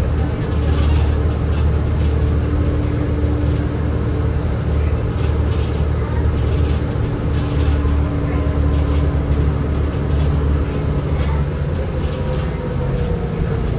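Inside the cabin of a 2005 New Flyer C40LF transit bus under way: its Cummins Westport C Gas Plus natural-gas engine and Allison B400R automatic transmission run with a steady low rumble and a held whine. Near the end a second, higher whine slides slightly in pitch.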